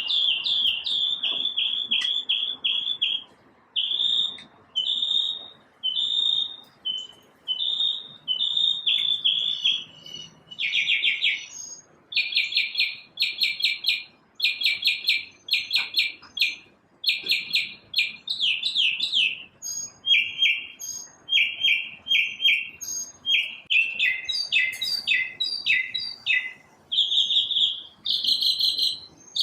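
A single songbird singing a long, varied run of short phrases: rapid trills, chirps and slurred notes, each phrase repeated a few times before it switches to a new one.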